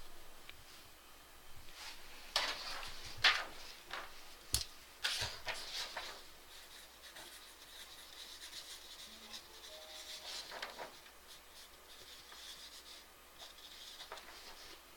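Close handling noises in a small room: a flurry of rubbing and scraping with a few sharp clicks, one especially crisp, then fainter scattered rustles.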